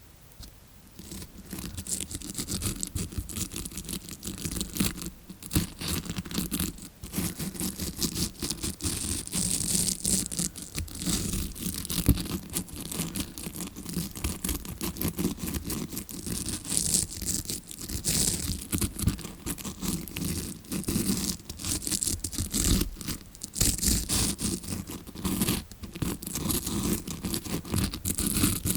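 Tawashi scrubbing-brush bristles scratched and rubbed right at the recorder's microphone, made to sound like an ear being cleaned as heard from the eardrum side. It is a dense, unbroken run of scratchy scrubbing strokes that starts faint and grows louder about a second in.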